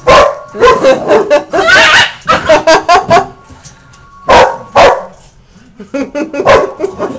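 A dog making a really weird, wavering vocal noise during rough play with another dog. Two sharp barks come a little past the middle, and a run of short yips and barks near the end.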